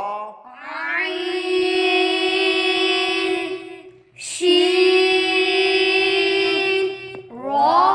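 Arabic letter names recited in a drawn-out, sing-song chanting voice: two long held notes, with a short break about four seconds in.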